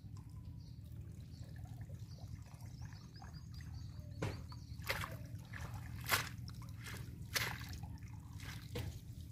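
Water trickling and dripping from a wet cast net as it is gathered up by hand in shallow canal water, with about five short splashes and sloshes in the second half.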